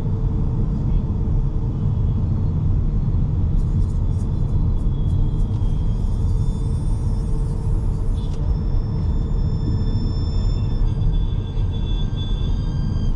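Steady low road and tyre rumble inside the cabin of an MG Windsor EV on the move, with faint high-pitched tones and a few ticks coming in about four seconds in.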